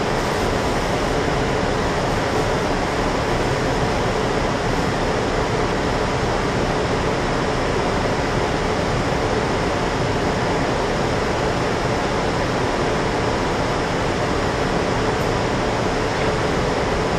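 Transit bus idling at a standstill, heard from inside the passenger cabin: a steady, unchanging hum of engine and air-conditioning blower.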